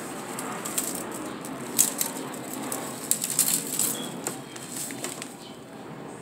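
Graham cracker crumbs shaken out of a plastic bag into a disposable aluminium foil pan: the bag crinkles and the crumbs rattle onto the foil in a run of irregular crackles, thinning out near the end as the bag is lifted away.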